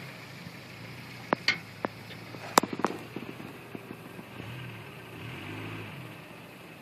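1987 Toyota 4Runner's engine running low as it drives a muddy trail, its pitch rising and falling once about four to six seconds in. Several sharp cracks come in the first three seconds.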